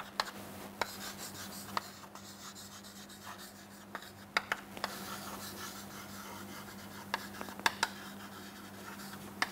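Chalk writing on a chalkboard: sharp taps as the chalk meets the board, with scratchy strokes between them, in clusters as each word is written. A steady low electrical hum runs underneath.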